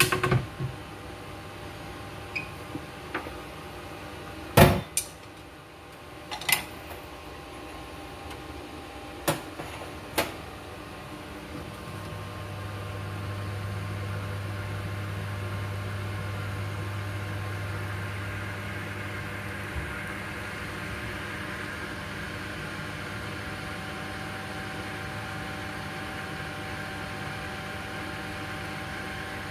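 Vegetables steaming and sizzling softly in a wok under a glass lid, with a few sharp knocks in the first ten seconds, the loudest about four and a half seconds in. A steady low hum joins about twelve seconds in.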